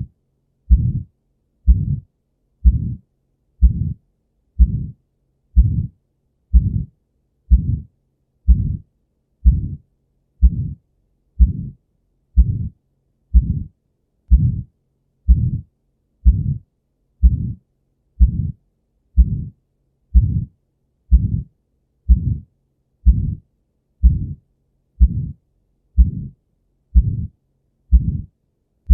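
Heart sounds of aortic stenosis: a steady heartbeat at about one beat a second. Each beat carries the systolic ejection murmur typical of a narrowed aortic valve.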